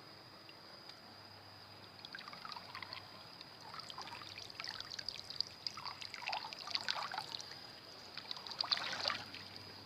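Water trickling and splashing in irregular spurts, over a steady high-pitched insect drone.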